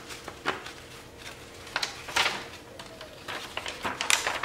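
Sheet of paper rustling and crinkling as it is handled and lifted, with a few light clicks and taps in between.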